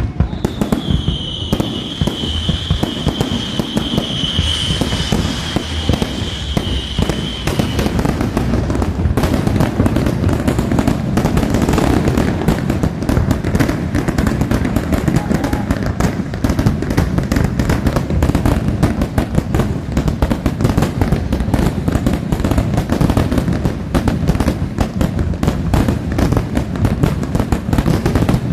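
Fireworks going off in a dense, continuous barrage of rapid bangs and crackling, with a steady high whistle over the first several seconds.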